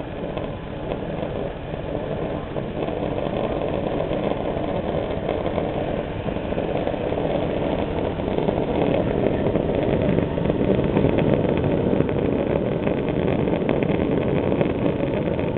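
Homemade gas torch burning with a blue flame at the end of its metal tube: a steady rushing noise that grows a little louder over the first few seconds, then holds.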